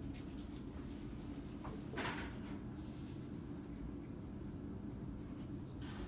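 A toothbrush scrubbing back and forth against a child's teeth, faint, with a brief rustle about two seconds in.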